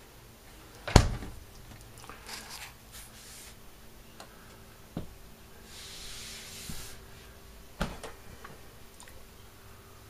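A door shutting with a loud thud about a second in, followed by brief rustling and two lighter knocks later on.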